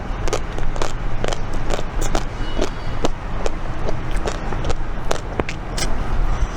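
Close-up biting and chewing of a vanilla Magnum ice cream bar, its chocolate shell cracking in quick, irregular snaps over a low steady rumble.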